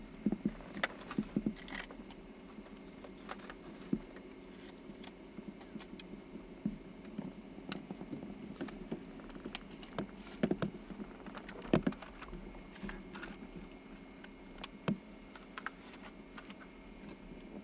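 Irregular small clicks and knocks of gear being handled in a fishing boat, over a steady low hum.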